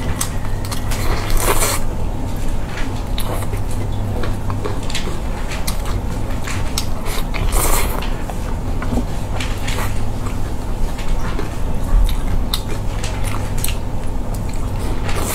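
Close-miked wet chewing and biting of glazed cola chicken wings, with sticky squishing as the wings are pulled apart by gloved hands. Many small clicks run throughout, with two brief louder noisy bursts, one about a second and a half in and one near the middle, over a low steady hum.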